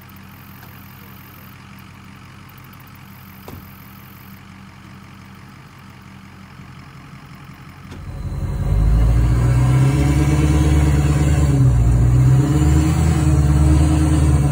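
Pickup truck engine running steadily at low revs, faint at first; about eight seconds in it becomes much louder and closer, a steady low sound with a slight wavering.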